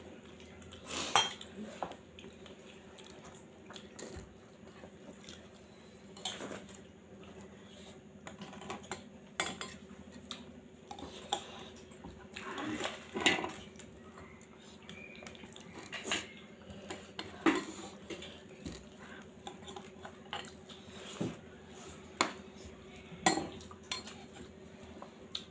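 Fingers mixing and scooping rice with gravy on a steel plate: irregular clinks and scrapes against the metal, a few sharper ones, with chewing between.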